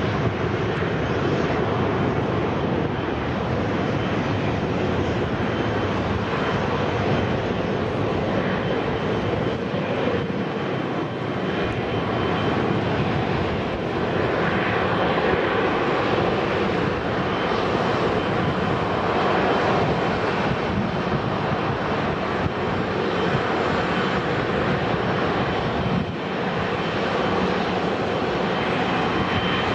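Airbus A321 jet airliner's engines at takeoff thrust: a steady rushing jet noise as it rolls down the runway and climbs away.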